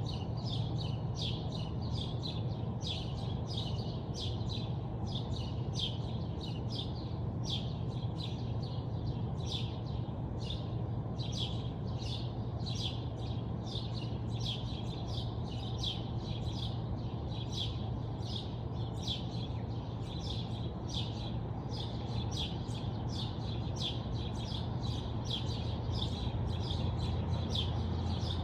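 Birds chirping in the morning: short, high chirps repeating about twice a second without a break, over a steady low hum.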